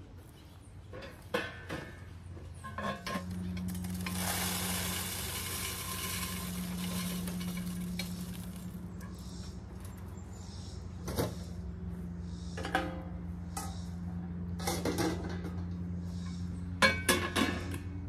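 A bird feeder being taken down and emptied: loose bird seed rattling and pouring for a few seconds, with sharp clicks and knocks as the feeder is handled. A low steady hum comes on about three seconds in and carries on beneath it.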